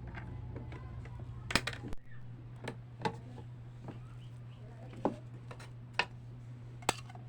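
Scattered light clicks and taps, about seven of them, from handling pancakes and utensils on an electric waffle maker, over a steady low hum.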